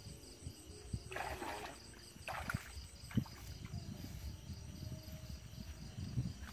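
Footsteps and swishing through wet field vegetation, with two louder brushing, splashy swishes about one and two and a half seconds in. Behind them, crickets chirp steadily, about four pulses a second.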